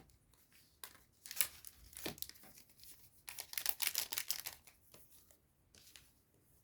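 A trading-card booster pack's wrapper being torn open and crinkled, in short bursts of rustling and tearing, the densest stretch around the middle.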